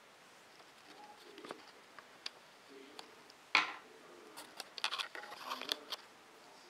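Light clicks and taps of hard plastic as a figure's display-stand parts are handled, with one sharp click about three and a half seconds in and a quick run of clicks a second later.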